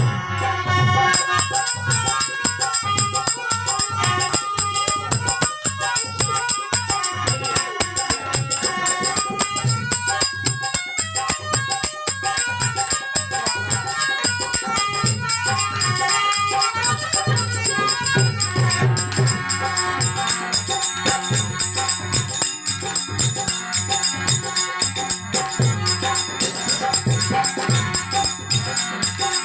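Instrumental passage of an Indian folk devotional song: a melody line over jingling, rattle-like percussion and a steady low drum beat.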